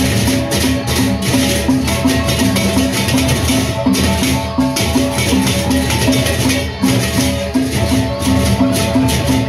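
Sasak gendang beleq ensemble playing a tabuh: large double-headed barrel drums beaten under fast, continuous clashing of hand cymbals, with gongs holding steady ringing notes and an even, quick pulse.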